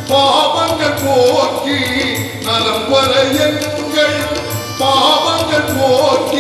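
A man singing through a microphone and PA, holding long, bending notes over musical accompaniment with a steady beat.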